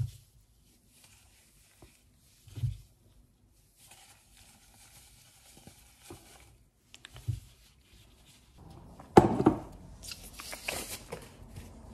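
A few soft thumps of boiled potatoes being set down on a wooden chopping board, then a blue disposable glove being pulled off the hand with a crinkly, rubbery rustle about nine seconds in, the loudest sound.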